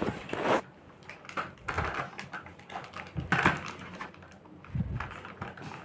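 Plastic toy race car being handled and pushed about: irregular light plastic clicks and rattles in short bursts.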